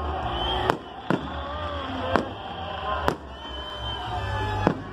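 Aerial fireworks bursting: five sharp bangs at uneven gaps, over a steady low rumble.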